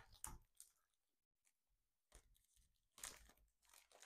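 Faint rustling and crinkling of a drone's soft protective wrap being pulled open by hand, in a few short, quiet patches.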